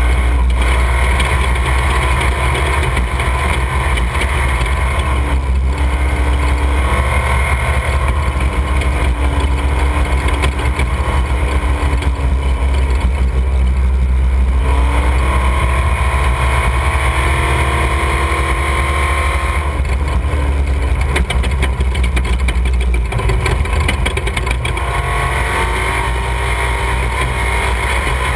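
Off-road desert race vehicle's engine running hard, its pitch dropping and climbing again several times over a heavy low rumble.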